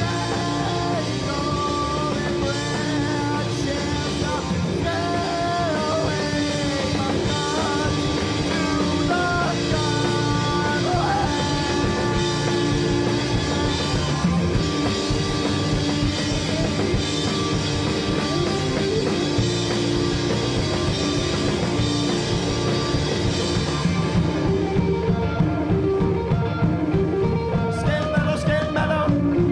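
Live rock band playing: electric guitars and drums with a singer's voice over them.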